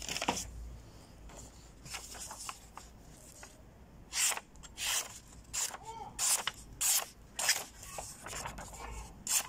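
A sharp 5Cr15 stainless-steel knife blade slicing thin strips off the edge of a sheet of paper, each cut a quick hissing swish. The cuts come in a steady run from about four seconds in, roughly three every two seconds, showing the blade comes well sharpened.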